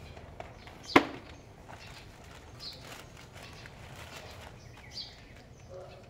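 A single sharp knock about a second in, much louder than anything else, among a few lighter clicks and handling noises; faint short high-pitched chirps twice later on.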